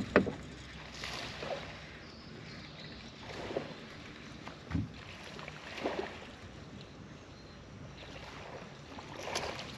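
A fishing rod cast gives a sharp swish just after the start, the loudest sound here. Then steady low wind and water noise around the boat, with a few soft knocks and taps scattered through as the bait is worked back in.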